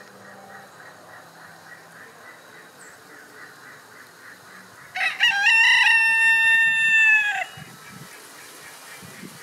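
Rooster crowing once, about five seconds in: a single cock-a-doodle-doo of about two and a half seconds, opening with short broken notes and ending on a long held note that drops at the close.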